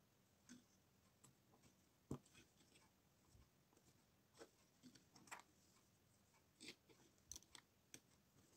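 Faint, scattered clicks and taps of plastic LEGO pieces being handled and pressed together, with the sharpest click about two seconds in.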